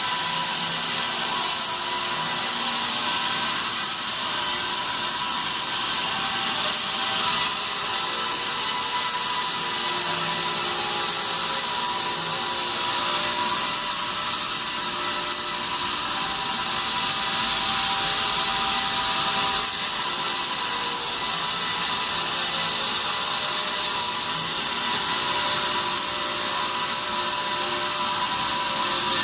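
Band sawmill running steadily while sawing pine, a constant mechanical noise with a steady whine in it.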